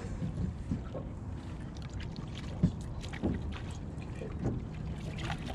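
Boat motor running at idle, a steady low rumble, with a few short knocks over it, the sharpest about two and a half seconds in.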